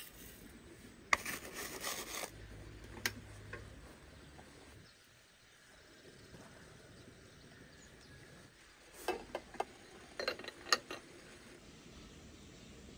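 Dry loose tea leaves scraped and scooped out of a metal tin with a spoon, a rustling rasp a second or so in, then a single click. Near the end come several quick clinks of glass as the glass teapot and its lid are handled.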